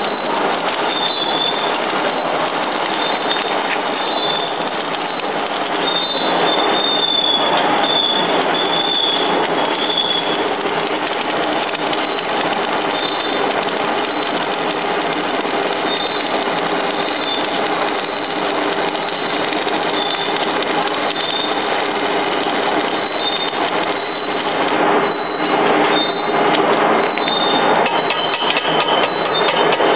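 Electric arc welding on the screw propeller of a charcoal briquette machine: the arc keeps up a steady crackling sizzle as weld is laid onto the screw to repair it.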